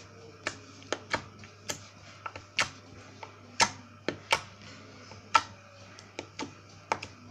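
Super fluffy slime squeezed and stretched by hand, giving irregular sharp little pops and clicks, some much louder than others.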